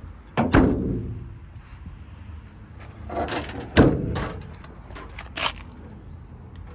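Two loud door slams, about half a second in and again near four seconds in, with a scraping, rattling stretch just before the second and a lighter knock after it: doors on a utility service body being shut.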